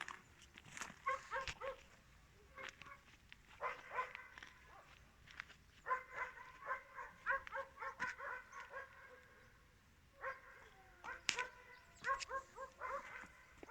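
A dog barking in repeated runs of quick, short barks, fairly faint, with a sharp click about eleven seconds in.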